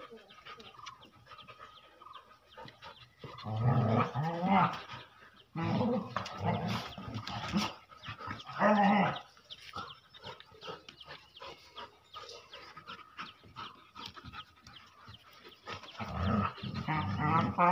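Two dogs playing and vocalizing in several low bouts of a second or two each: a few seconds in, around the middle, and again near the end.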